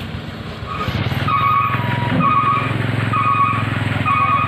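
Vehicle engine running on the road, with a pitched electronic beep repeating about once a second from just under a second in.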